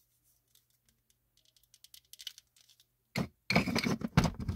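A plastic action figure being handled and set in place on a figure display. Faint clicks at first, then about three seconds in a loud run of rustles, knocks and scrapes as hands work close to the microphone.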